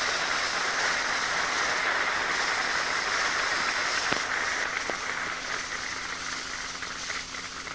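A large open-air crowd applauding, an even rush of clapping that slowly dies down toward the end. It is heard through the hiss and a faint steady hum of an old 1942 recording.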